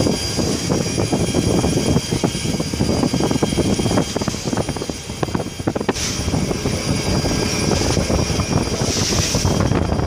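A passenger ferry's engine running steadily under way, mixed with wind buffeting the microphone.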